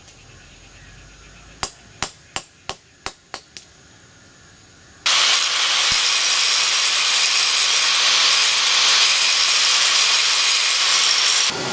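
About seven quick hammer blows on the hot steel of a punch being forged from car coil spring, followed about five seconds in by an angle grinder running steadily as it grinds the steel, stopping abruptly just before the end.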